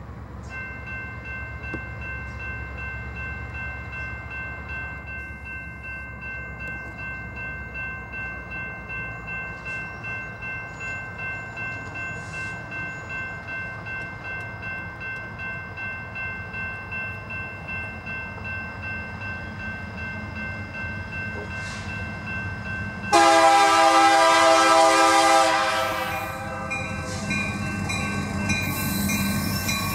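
Diesel freight locomotives approaching with a low engine rumble while a grade-crossing bell rings steadily. About 23 seconds in, the lead locomotive sounds its air horn, loud, for about three seconds, and blows again near the end.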